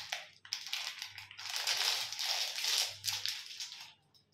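Plastic wrapper of a packaged snack cake crinkling and rustling in irregular bursts as it is worked open by hand. It stops a little before the end.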